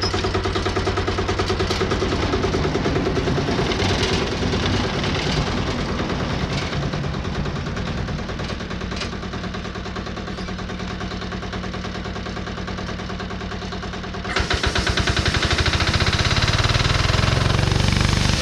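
Wood-Mizer LT15 portable bandsaw mill's engine running steadily under a cut, easing off slightly in level before turning abruptly louder about fourteen seconds in.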